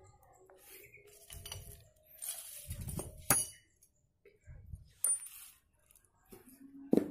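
Loose steel parts from a dismantled motorcycle engine (bolts, washers and springs) clinking and rattling against each other as a hand rummages through them on a plastic sheet. There are a few sharp clinks, the loudest near the end.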